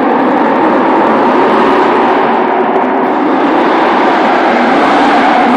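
BMW E39 540i's V8 drifting: the engine held at high revs with tyre noise, loud and steady.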